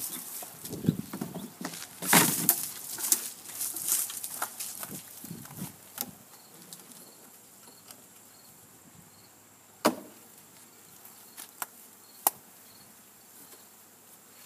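Close handling noise: irregular knocks, rustles and scrapes through the first six seconds, then quieter, with a few sharp single clicks between about ten and twelve seconds in.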